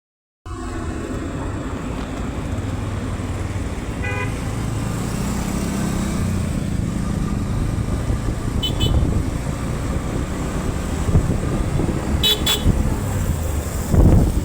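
Steady engine and road rumble of a vehicle travelling on a highway, with short vehicle horn toots a few times.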